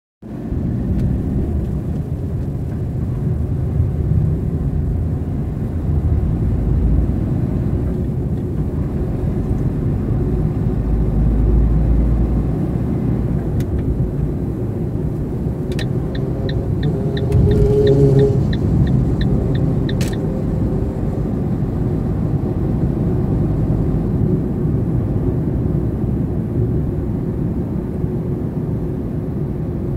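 Steady low rumble of road traffic, with a run of short, evenly spaced high ticks, about three a second, for a few seconds a little past halfway.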